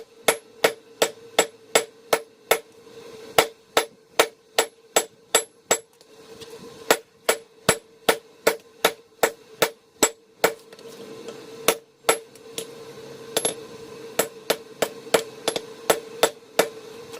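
Hand hammer blows forging a steel axe head on an anvil, a steady run of sharp ringing strikes about two to three a second, broken by a couple of short pauses, over a continuous low hum.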